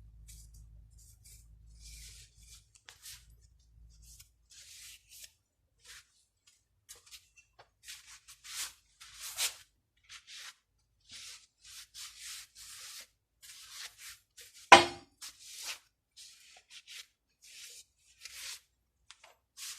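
Workshop handling noises from fitting new front control-arm bushings: many short scraping and rubbing sounds of tools against the suspension arm. A low hum runs for the first four seconds, and a single sharp knock about 15 seconds in is the loudest sound.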